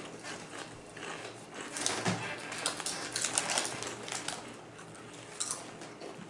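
Doritos tortilla chips being crunched while chewed, in irregular clusters of crisp crackles.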